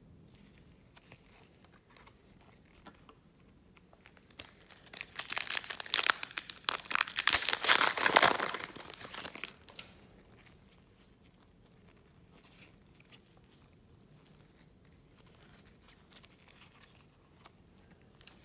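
A foil trading-card pack wrapper being torn open and crinkled for about five seconds, starting a little over four seconds in, between quieter stretches of faint card handling.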